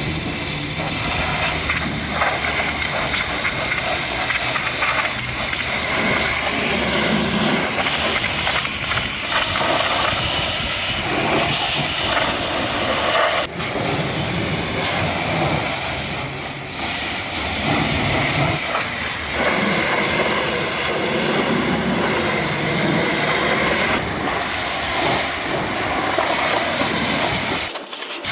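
Pressure washer spray hissing steadily against a truck's body, shifting a little as the jet moves, with a brief break about halfway and another just before the end.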